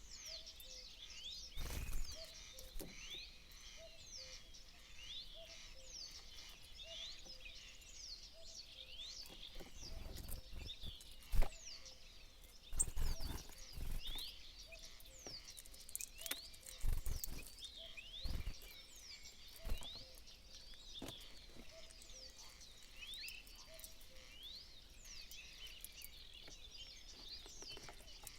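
Many small songbirds chirping and twittering without a break, a busy mix of short high calls, with a lower short note repeating about once a second. Several dull low thumps cut in, the sharpest about 11 seconds in.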